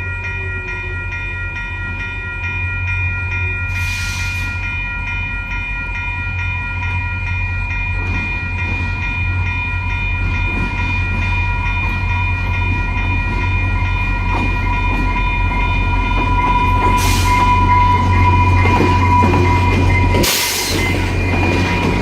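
A VIA Rail F40 diesel locomotive approaches, its engine growing steadily louder, while the crossing bell rings on throughout. Three short bursts of hiss come at about 4, 17 and 20 seconds.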